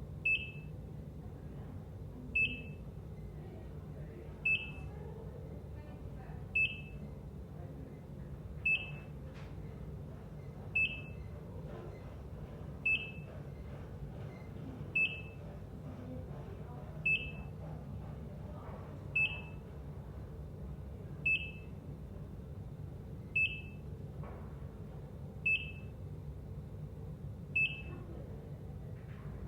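ECG heart monitor beeping, one short high beep about every two seconds in a steady rhythm, over a constant low hum.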